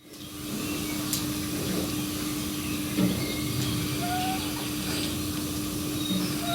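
Sleeping draft horse foal snoring, slow noisy breaths with the strongest about three seconds in. Small birds chirp over a steady hum.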